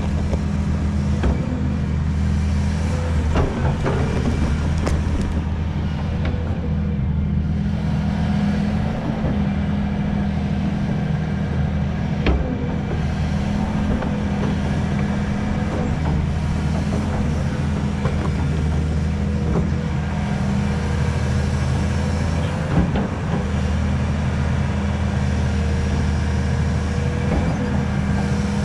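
Hydraulic excavator's diesel engine running steadily under working load, with a few sharp knocks about 12 and 23 seconds in.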